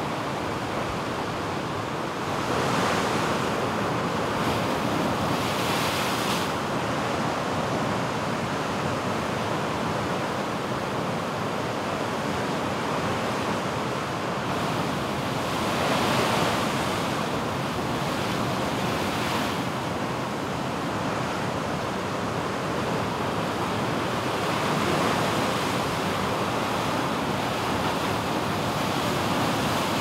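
Heavy ocean surf breaking against and washing over a sandstone rock shelf: a continuous rush of whitewater, with several louder surges a second or two long as individual waves break.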